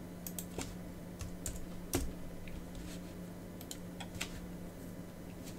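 Computer keyboard keystrokes: a scattering of separate, irregular key clicks, one louder about two seconds in, over a steady low hum.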